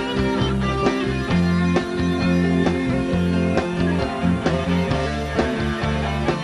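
Live rock band playing: electric guitars and electric bass over a drum kit keeping a steady beat.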